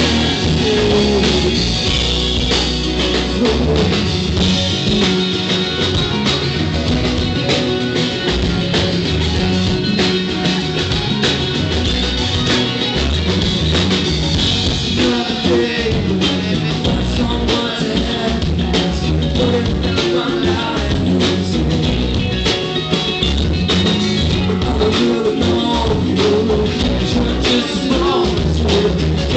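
Live band playing a pop-rock song: a strummed acoustic guitar over a drum kit, with singing.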